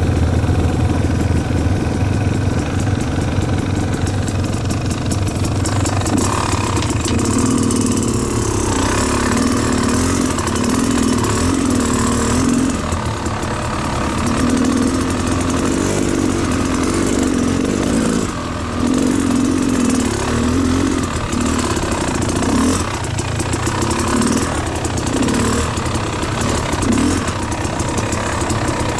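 Beta Xtrainer two-stroke dirt bike engine running. It is steady at first, then from about six seconds in it rises and falls in repeated short surges as the throttle is opened and closed.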